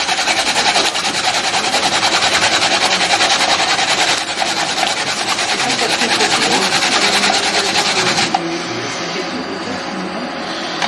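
Daikon radish being grated on a box grater's metal face in quick, even strokes, a steady rasping that stops about eight seconds in.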